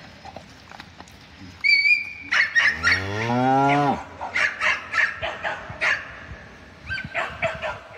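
Cow mooing: one long call about three seconds in that rises and then falls in pitch, with shorter, higher-pitched calls before and after it.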